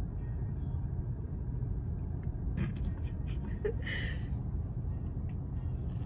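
Steady low rumble of a car idling, heard inside the cabin, with a few faint clicks and a short breath about four seconds in.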